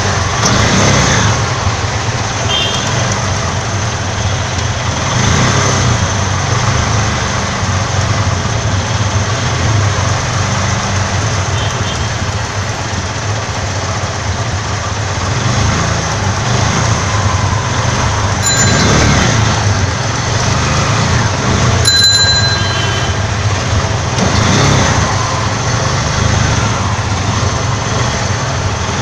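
Engine of a CNG auto-rickshaw running steadily, heard from inside its caged passenger cabin, with a constant wash of road and water noise as it moves through a flooded street. Two short high-pitched tones sound a little past the middle.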